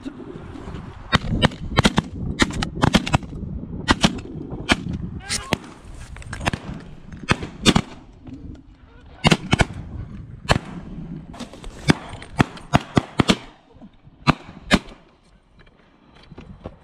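A flock of geese honking, broken by many sharp shotgun shots from several guns, some close together in pairs; the calls and shots die down in the last few seconds.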